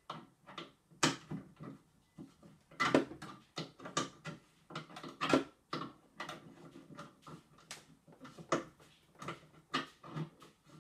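Screwdriver driving the large lid screw back into a burglar alarm bell box: irregular clicks, knocks and scrapes of the tool on the screw and the plastic casing, some louder than others.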